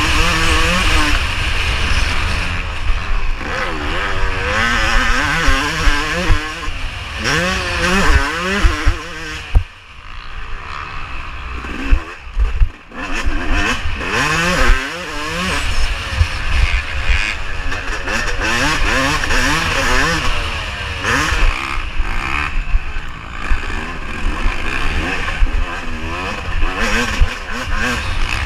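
Yamaha YZ250 two-stroke motocross engine under race throttle, its pitch rising and falling again and again through gear changes. The throttle is chopped twice near the middle, so the engine briefly drops away.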